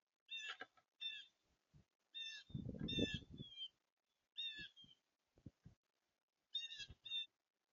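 Birds calling: a series of short pitched calls in pairs and threes. A louder low rumble comes through under the calls around the middle.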